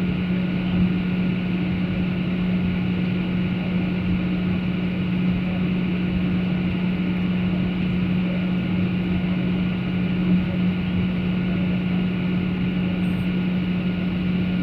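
Airliner cabin noise during descent: a steady drone of engines and airflow with a constant low hum running through it.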